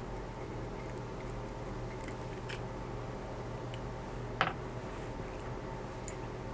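Faint ticks and handling sounds of a 3/32 Allen wrench backing out the small screws on a memory module's heat-spreader fins, with one short, sharper click about four and a half seconds in as a removed screw is dropped onto the tabletop. A steady low hum runs underneath.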